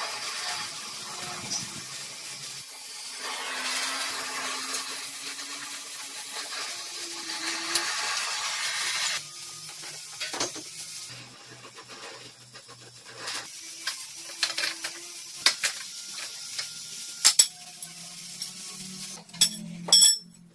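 Steady hiss of a gas torch heating the rusted rear of a motorcycle frame for about nine seconds. Then come scattered metallic clinks and knocks from tools and parts as the rear end is dismantled, with a few sharp clanks near the end.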